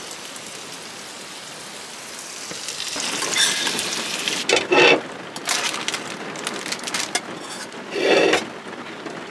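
Wind rushing through leafy trees as a storm builds. About three seconds in, a metal spoon starts scraping and knocking in a saucepan as rice is served onto plates, with two louder scrapes.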